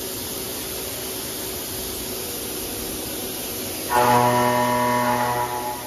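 Doosan DNM750L CNC vertical machining center running with a steady hum. About four seconds in, a loud, steady whine with many overtones starts abruptly as the spindle works down at the vise, then fades near the end.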